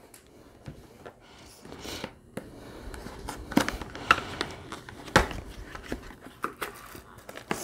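A cardboard box of acrylic paint pens being handled and opened: rustling and scraping, with a few sharp clicks and knocks partway through.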